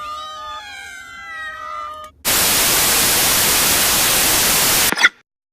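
Cat meowing for about two seconds, several calls overlapping and bending up and down. It is cut off by a burst of loud hissing static that lasts about three seconds and then stops suddenly.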